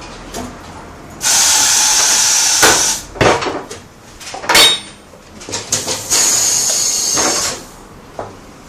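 Compressed-air tool at a tyre change hissing in two long bursts of about two seconds and a second and a half, with a few sharp metallic knocks in between.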